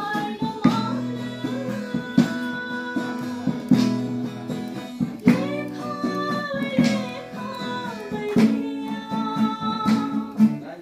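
A woman singing a song to strummed acoustic guitar, with a full chord struck about every second and a half under the sung melody.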